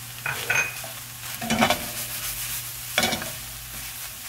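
Wooden spoon stirring ground beef in a hot frying pan, the meat sizzling steadily, with three louder scrapes of the spoon through the mince about half a second, a second and a half and three seconds in.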